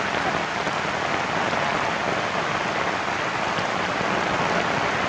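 Heavy rain falling steadily, an even hiss of rain with no breaks.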